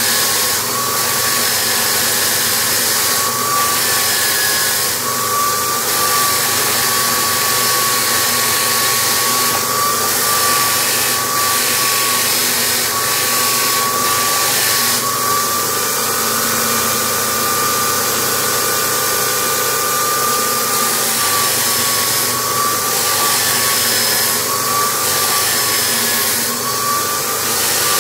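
Electric drill driving a sanding disc as a homemade disc sander, with a block of wood pressed against the disc: a steady motor whine that wavers slightly with the load, over the hiss of sandpaper on wood.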